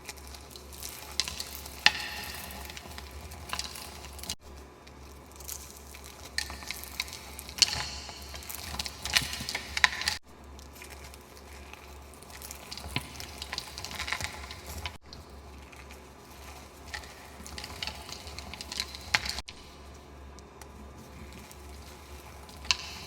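Reformed gym chalk being crushed and crumbled: dense crisp crackling crunches with occasional sharper snaps, broken by several abrupt cuts.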